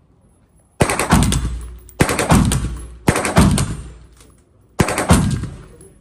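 Gunfire from an AR-15-style rifle at a shooting range: four loud, sharp reports about a second apart, each trailing off in a booming echo.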